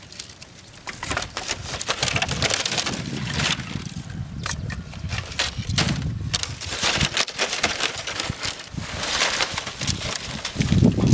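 Dry palm fronds and sticks rustling and crackling as they are handled and laid down, with scattered knocks of wood.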